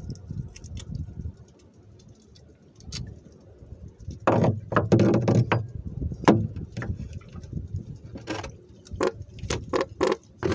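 Close handling noise from a person moving and working with his hands near the microphone: scattered light clicks, a rubbing scrape about four seconds in, then a run of sharp knocks and taps.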